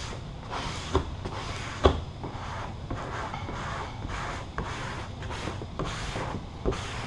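Squeegee strokes rubbing firmly over matte black vinyl wrap film on a car's body panel, a string of swishes pressing out air pockets, with two sharp knocks about one and two seconds in.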